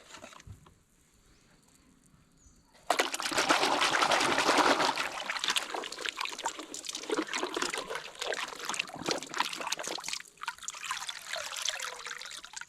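Water trickling and splashing over a toy being washed. It starts about three seconds in and eases off near the end.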